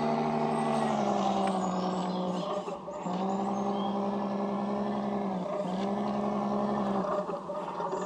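Radio-controlled scale crawler truck driving up a rocky slope, its drive motor and gearbox humming steadily at a low crawl, dropping out briefly a few times as the throttle eases off and comes back.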